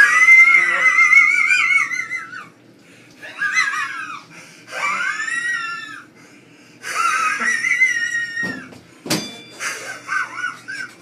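A person's high-pitched wheeze laugh: four long, wavering, squealing bouts with short gasps between them. About nine seconds in there is a sharp thump, followed by a few shorter squeaky wheezes.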